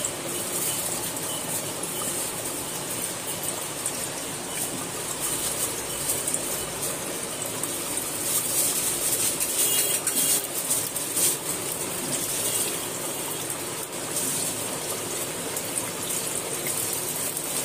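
Peeled potatoes frying in hot oil in a kadhai: a steady sizzle with fine crackles and spatters as more pieces are dropped in.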